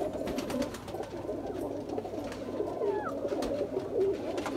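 A loft full of domestic pigeons cooing, many voices overlapping in a steady murmur, with a few scattered faint clicks.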